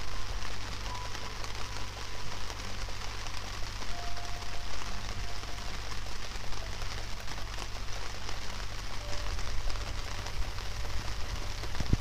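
Steady rain falling onto wet gravel and a shallow puddle: a dense, even patter of many small drops.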